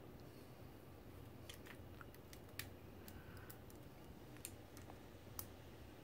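Faint, light metal clicks, about ten of them scattered irregularly, as a small pick works the E-clip off the mechanism of a Kaba Simplex push-button combination lock.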